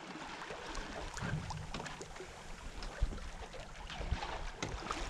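Water rushing and splashing along the hull of a Westsail 32 sailboat under sail, with crackly spatters of spray. Wind buffets the microphone in low rumbles now and then.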